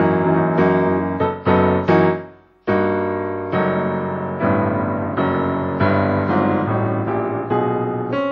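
Solo piano music: struck chords that die away, a brief break about two and a half seconds in, then a run of steady separate notes.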